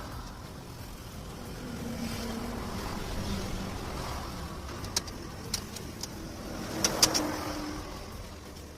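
Steady low vehicle-engine rumble, with a few sharp metallic clicks and clinks about five seconds in and a cluster of louder ones around seven seconds.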